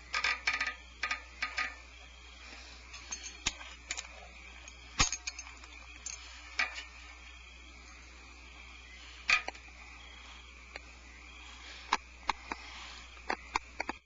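Scattered sharp clicks and ticks inside a barn owl nest box: a quick cluster at the start, then single clicks every few seconds, over a steady low hum.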